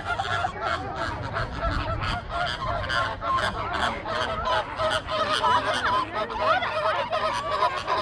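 A flock of American flamingos honking: many short calls overlapping, several a second, without a break.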